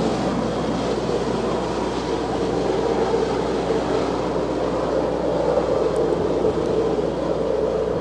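Double-stack intermodal freight train running by with its diesel locomotive, a steady rumble of wheels on rail that holds even throughout.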